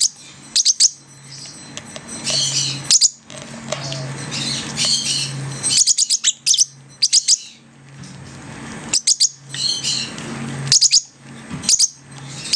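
Young peach-faced lovebirds and a parrotlet chirping: sharp, high chirps in quick clusters every second or two, with softer raspy chatter in between.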